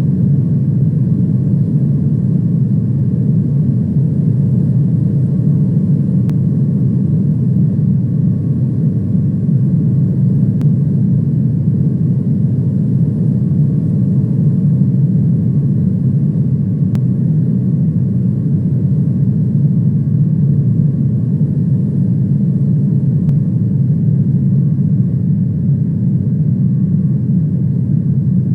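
Steady low drone of an airliner heard from inside the cabin, with a faint steady whine above it.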